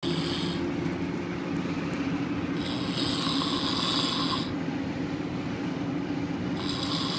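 A man snoring in a slow rhythm, one snore about every four seconds, over the steady low hum of a moving vehicle around him.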